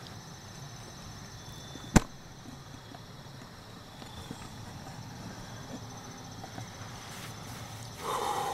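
A single sharp crack of a bow being shot about two seconds in, over a steady high trilling of insects. A brief louder rustling noise comes near the end.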